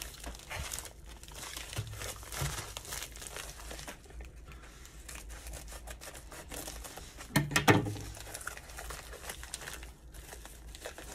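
Thin clear plastic sleeve crinkling and rustling as a rolled canvas is handled and slid out of it, with a few sharp bumps about two-thirds of the way through, the loudest sounds.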